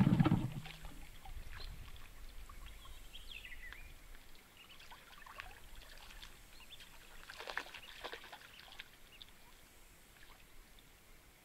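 Faint water trickling and lapping around a small inflatable boat, with a few small splashes; the clearest comes about seven and a half seconds in.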